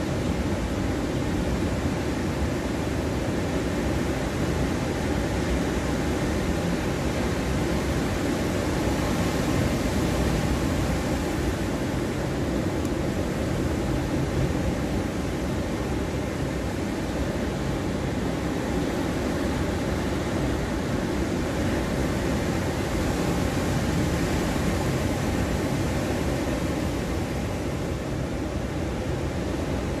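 Surf from a rough sea breaking along a sandy beach: a steady rushing wash that swells slightly about ten seconds in and again later.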